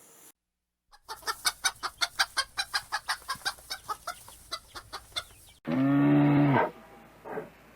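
Chickens clucking in a quick, steady run of short calls, about five a second. Then, after a cut, a cow moos once for about a second.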